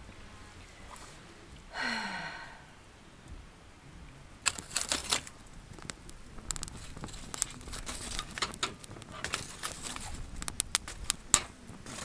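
Wood fire crackling: a split log catching on glowing embers gives irregular sharp pops and snaps from about four seconds in. Before that, a single short hum that falls in pitch.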